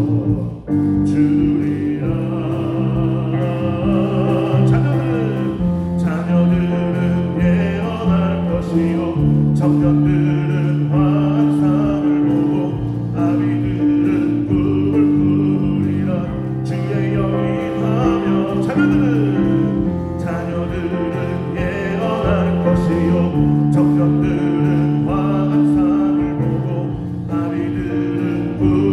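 Worship band playing a Korean gospel praise song, with electric bass, drums and keyboard under sung vocal lines.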